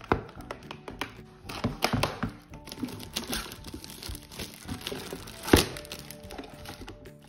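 Clear plastic shrink-wrap being peeled and torn off a plastic toy case, crinkling with sharp crackles; the loudest crackles come right at the start and about five and a half seconds in. Background music plays underneath.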